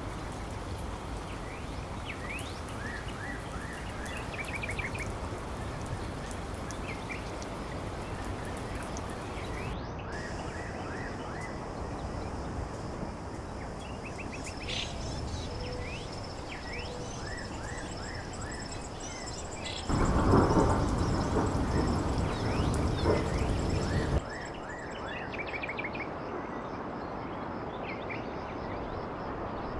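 Outdoor ambience: small birds chirping repeatedly over a steady rushing noise. About two-thirds of the way in, a louder low rumbling noise lasts about four seconds and cuts off suddenly.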